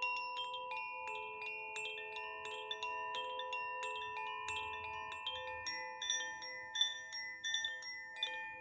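Koshi chime sounding, its clapper striking the tuned rods several times a second. Many sweet, overlapping notes keep ringing together.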